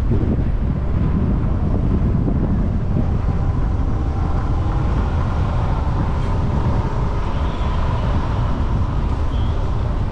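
Steady low rumble of a car driving, road and engine noise.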